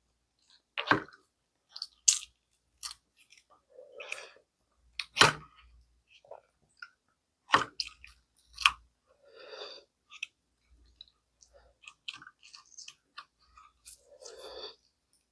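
Close-miked chewing and mouth sounds from eating gamjatang, Korean pork bone and potato stew: wet smacks and sharp clicks come at irregular intervals, with a few softer, longer stretches of chewing between them.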